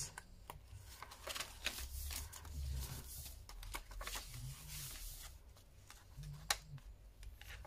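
Paper pages of a thick handmade junk journal being turned and handled by hand, rustling with a few sharper flicks.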